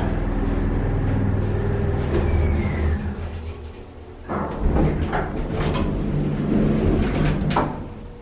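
Vintage Otis traction elevator's hoist motor humming as the car slows to a stop at the floor, with a short falling whine about two seconds in. After a brief quieter moment, the elevator doors slide open with rumbling and clatter, with a sharp knock near the end.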